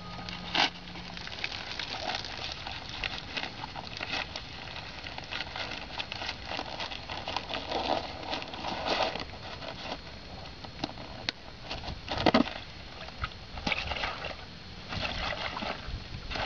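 Water-filled nylon dry sack being handled, its top rolled down and the bag squeezed, giving a steady run of crinkling and rustling scrapes. There is a sharp click about half a second in and a louder knock about twelve seconds in.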